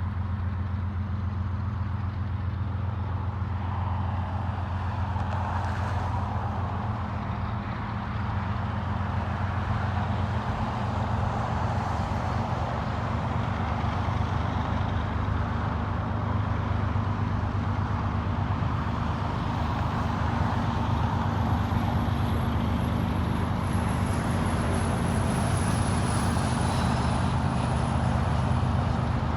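GE ES44C4 and ET44C4 diesel locomotives running, a steady low engine drone that grows slightly louder. A thin high whine comes in about two-thirds of the way through.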